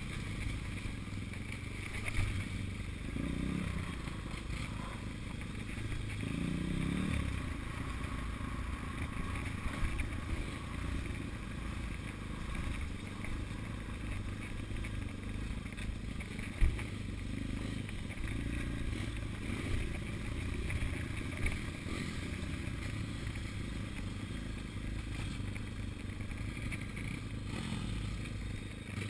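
Pit bike engine running steadily as the bike rides along a rough dirt trail, with a sharp knock about two seconds in and a louder one around the middle.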